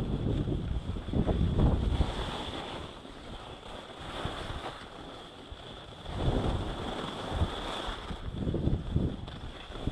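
Wind buffeting an action camera's microphone in uneven gusts of low rumble, over the faint hiss of skis sliding on packed snow.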